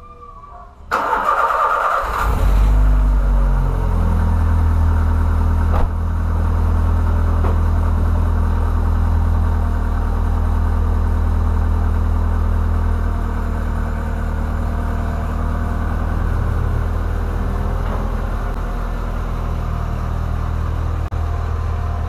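Volkswagen Polo sedan's 1.6 four-cylinder engine cranked by the starter about a second in and catching a moment later, then idling steadily through its aftermarket Jetta exhaust, which is loud.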